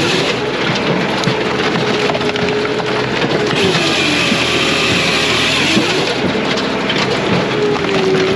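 Brute Force USA 18-24HD diesel firewood processor running under load, hardwood rounds cracking and splintering as they are split. Dense crackling over a steady machine tone that dips and recovers in pitch twice.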